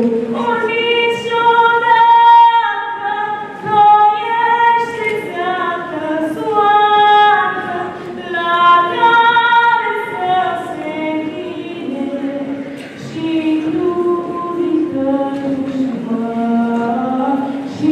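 A girl singing a slow song solo and unaccompanied into a handheld microphone, holding long notes.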